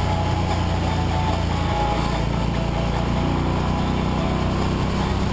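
Motorcycle engine running at road speed under a steady rush of wind, with the engine note changing about two seconds in.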